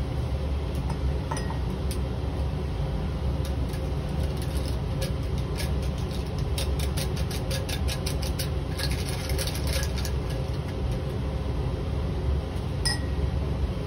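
Crushed potassium hydroxide tapped off weighing paper into a glass test tube: a scatter of small clicks and ticks, thickest about five to ten seconds in, with one more near the end. Under it runs the steady hum of the fume hood's fan.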